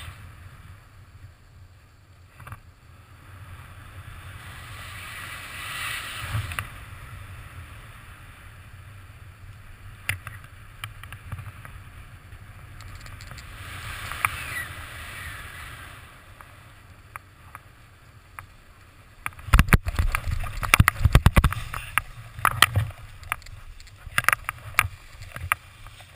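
Airflow rushing over the camera microphone of a paraglider gliding low over snow, swelling twice. About twenty seconds in it gives way to a run of loud knocks and scuffs as the pilot touches down on the snow and the wing comes down.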